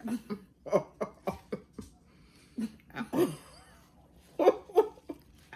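A person coughing several times in short bursts, with a few brief vocal noises in between.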